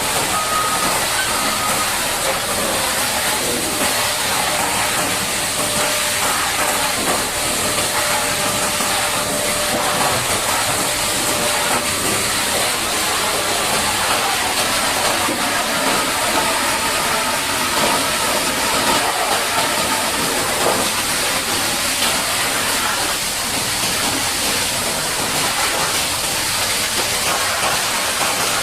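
High-pressure water jet hissing steadily as it blasts mud off the steel of a Caterpillar D8T bulldozer.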